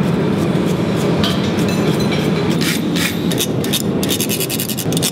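A wire brush scrubs the glowing steel hook on the anvil, then a brass bar is rubbed quickly back and forth over the hot twisted steel to coat it with brass. The scraping strokes come fast and dense from about halfway through, over a steady low rumble.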